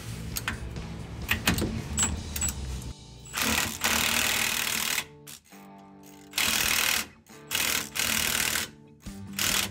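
Cordless impact wrench hammering in about five short bursts, the first and longest about a third of the way in, driving the lower rear shock bolt on a Ram 1500 tight. Light metal clicks come before the first burst.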